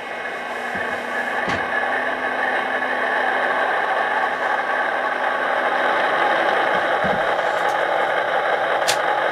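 HO scale model train running along its track: a steady mechanical running noise from the locomotive's motor and wheels on the rails, getting louder over the first few seconds as the train picks up speed, then holding steady. There is a short sharp click near the end.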